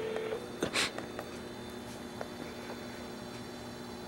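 Phone handset: a steady beep tone cuts off just after the start, a sharp click comes about a second in, then only faint hum with a few soft ticks as the handset's buttons are handled.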